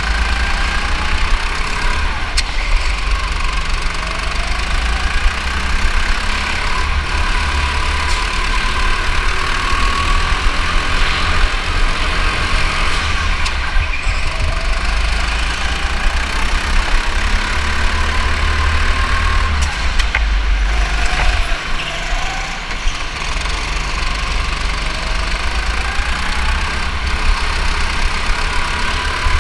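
Go-kart engine running hard through a lap, its whine rising and falling over and over as it revs up and drops back for the corners, over a heavy low rumble.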